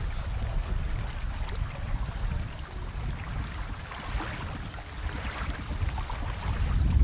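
Wind buffeting the camcorder microphone: a low rumble that swells and eases unevenly, with a faint hiss of choppy lake water above it.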